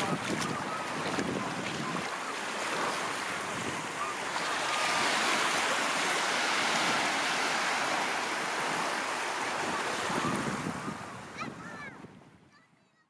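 Small sea waves washing up over sand in the shallows, with wind buffeting the microphone. The sound fades out near the end.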